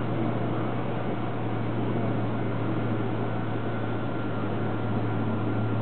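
Steady low hum under an even noisy hiss, the distant run of rail and street traffic, with no separate clacks, horn or crossing bell standing out.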